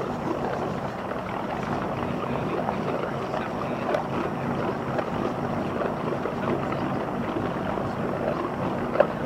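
Small motor launch's engine running steadily as the boat cruises on calm water, with a sharp click near the end.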